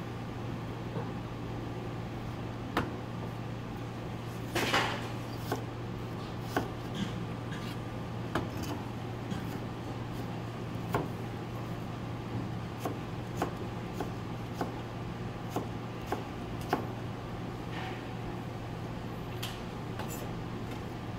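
Chef's knife cutting white radish into thin sticks on a plastic cutting board: sharp, irregular knocks of the blade on the board, with a louder cluster of cuts about five seconds in. A steady low hum sits underneath.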